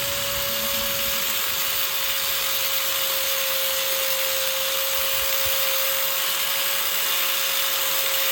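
Electric power tool running steadily: a constant whine over a hiss, with no change in speed.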